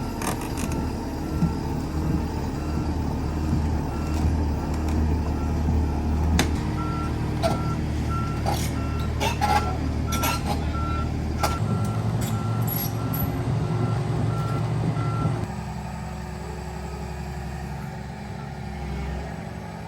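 Heavy diesel machine running with its backup alarm beeping at about two beeps a second, with a few knocks and clanks in between; the beeping stops and the engine drops to a lower, quieter drone about fifteen seconds in.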